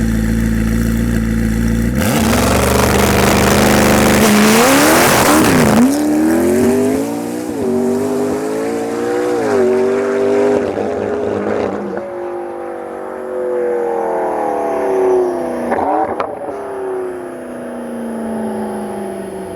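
McLaren MP4-12c's twin-turbo V8 held at steady high revs on launch control, then launching about two seconds in. The revs climb and snap back down through several quick upshifts, then the note falls and fades as the car pulls away.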